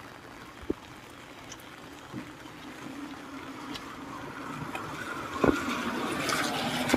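Cars driving past on a rain-wet street, their tyres hissing on the wet road, the sound building over the second half. There is a sharp knock a little past the middle.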